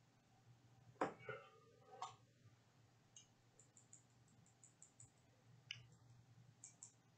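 Near silence: faint room hum with a few soft clicks, the loudest two about a second and two seconds in, then lighter ticks later on.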